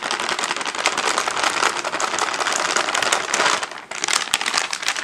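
Maida flour poured from a container into a bowl of water: a dense, crackly rustle that stops a little before four seconds in, followed by a few light clicks.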